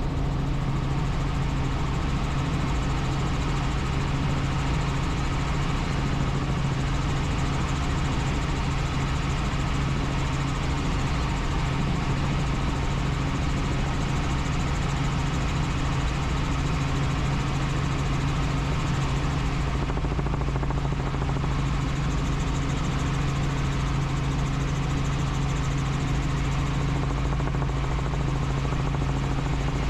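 Helicopter engine and rotor in flight: a steady, unbroken drone with a strong low hum.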